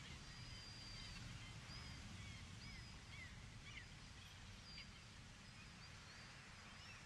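Faint outdoor ambience of birds chirping, short scattered calls and little rising and falling whistles, over a steady low rumble.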